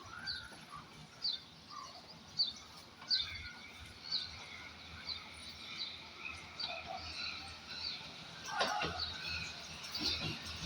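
Birds chirping outdoors, with a short sharp call about once a second and a busier burst of calls near the end, over a low steady hum and background noise.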